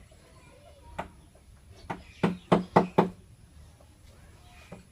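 Sharp knocks on wood while a joint is being worked: one knock about a second in, then a quick run of five about a second later.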